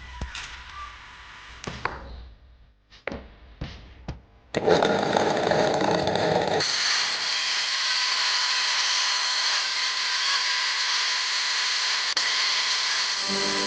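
A few knocks and taps, then an electric power tool starts about four and a half seconds in and runs steadily; its sound shifts higher about two seconds after starting.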